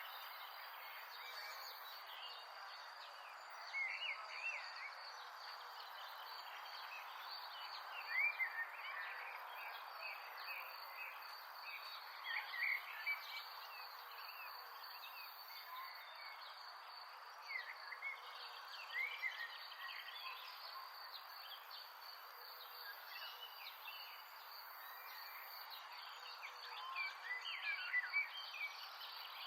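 Outdoor nature ambience: a steady high insect trill over a soft hiss, with short chirping calls from birds or frogs every few seconds.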